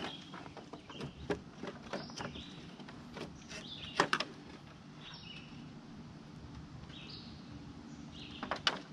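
Hard plastic clicks and knocks as the headlight retaining rods of a 2003 GMC Sierra are pulled and the headlight assembly is worked loose from its mount, the sharpest knocks about four seconds in and twice near the end. Birds chirp faintly in the background.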